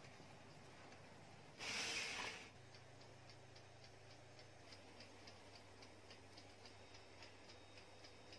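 A brief rush of hiss about two seconds in, then a faint, even ticking, about three ticks a second, over a low hum.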